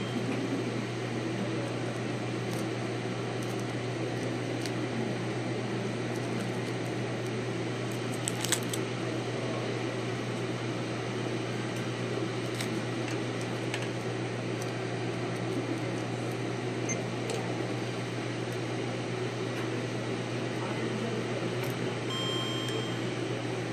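Steady low mechanical hum of room equipment, with a few faint clicks, a sharper click about eight seconds in, and a short beep near the end.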